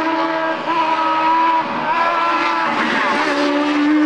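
Racing sports prototype's engine at high revs, holding a steady pitch with three short breaks for quick gear changes as it accelerates away.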